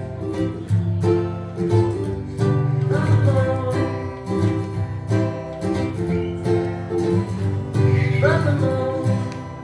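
Acoustic guitar strumming chords with a singing voice over it at times. The playing dies away near the end.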